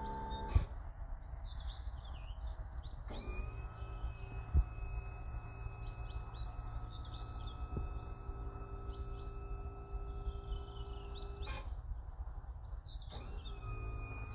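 Steady whine from the HY-RYDER BA-12 trailer boom lift's drive as the boom moves, over a low outdoor rumble, with birds chirping. The whine starts about three seconds in, breaks off after a click near the end, and starts again shortly after. There is a sharp knock about four and a half seconds in.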